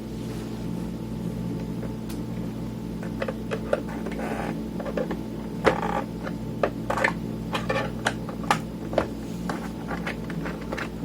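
Light clicks, taps and knocks of hands handling the plastic casing and parts of a Tascam Portastudio 414 MKII cassette multitrack as it is taken apart, scattered and irregular, over a steady low electrical hum.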